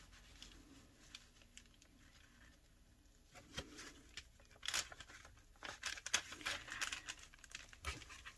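Paper and envelopes being handled and smoothed by hand: faint rustling and crinkling with short sharp clicks, sparse at first and busier from about three seconds in.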